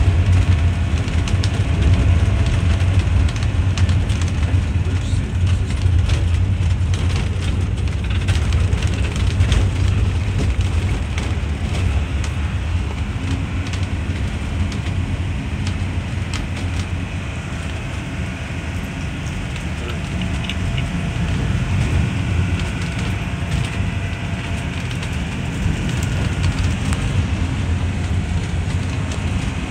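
Road and engine noise inside a vehicle's cabin on a rough, bumpy road: a steady low rumble with scattered knocks and rattles.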